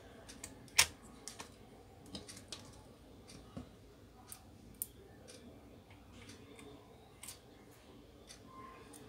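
Irregular small clicks and taps of a hand tool and fingers working on an opened laptop's metal chassis, connectors and ribbon cables, the loudest about a second in.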